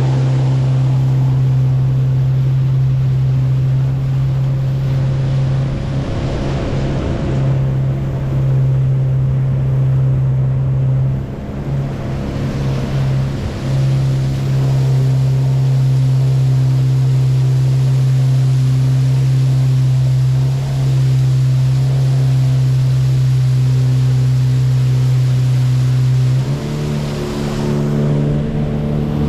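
Outboard motor of a small river boat running steadily under way, a loud, even hum whose pitch steps up slightly near the end.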